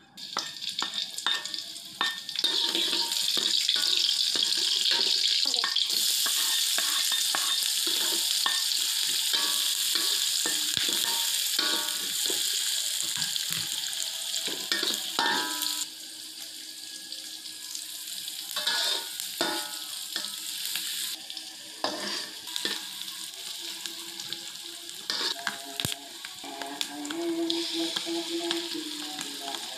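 Chopped onion tipped into hot oil in a wok, frying with a loud sizzle while a metal ladle scrapes and clinks against the pan. The sizzle starts suddenly at the beginning and settles to a quieter level about halfway through.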